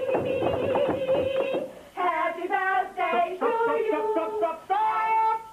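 A group of voices, children's among them, singing a tune in stepping notes, starting about two seconds in. Before the singing there is a rapid clatter of sharp taps under one held note.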